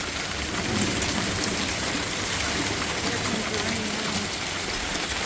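Hailstorm with heavy rain pelting down: a steady, dense patter of hail and rain hitting surfaces.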